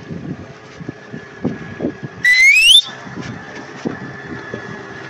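Boat's outboard motor running steadily, with a loud rising whistle about two seconds in that lasts about half a second.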